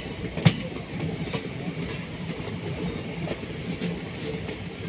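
Moving passenger train heard from inside the coach: a steady rumble of wheels on the rails, with a sharp clack about half a second in.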